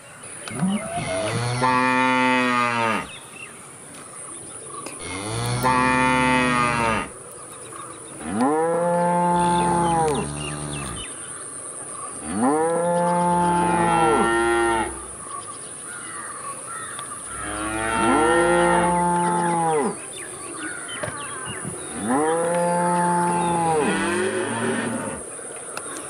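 Cows mooing: six long moos at roughly four-second intervals, each lasting about two seconds and rising then falling in pitch.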